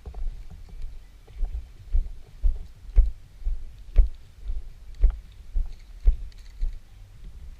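Footsteps of the camera-wearing player walking, heard as low thumps about two a second, every other one heavier.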